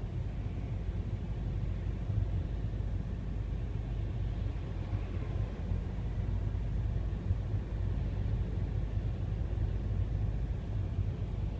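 Steady low rumble of engine and tyre noise heard inside the cabin of a moving car.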